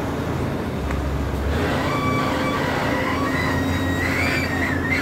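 Pindad PC200 excavator's diesel engine running with a steady low drone, and from about a second and a half in, high metallic squeals that waver in pitch, the kind steel tracks make grinding and flexing as the machine crawls onto a truck's loading deck.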